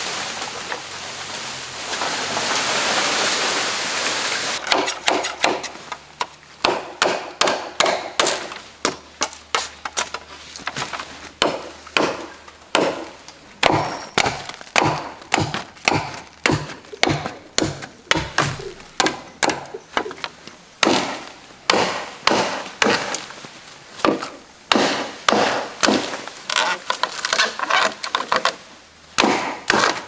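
A tall leafy bamboo culm comes down through the foliage with a rushing rustle of leaves. Then a machete chops again and again into the green bamboo, cutting off branches at the nodes: a long run of sharp, woody chops, roughly two a second.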